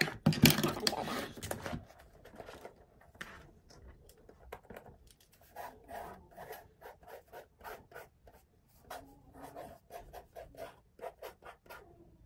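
Close handling noise: a loud rustle and rub in the first two seconds, then many short scratches and taps as hands work at something close to the microphone.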